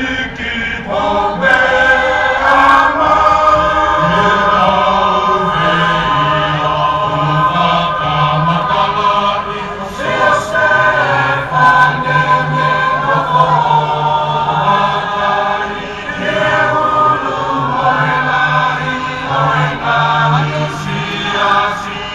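Tongan lakalaka: a group of voices singing a chant-like choral song in long held phrases, with short breaks between phrases about ten and sixteen seconds in.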